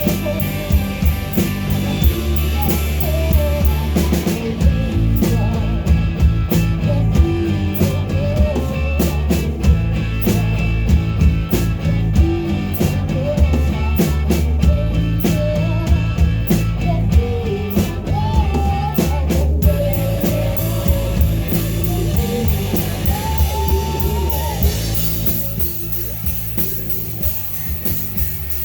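Live rock band playing: drum kit, bass and electric guitar with a singer. The sound gets thinner and a little quieter near the end as the low end drops away.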